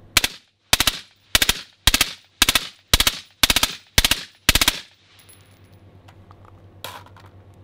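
Suppressed machine gun firing nine short bursts of a few rounds each, about two bursts a second, for nearly five seconds: full-auto fire to heat a Rebel Silencers suppressor to failure. A single sharp click follows a couple of seconds after the last burst.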